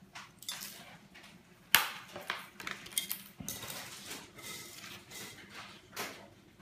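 Kitchenware clattering on a tabletop as a toddler handles it: scattered clicks and knocks, with one sharp knock nearly two seconds in.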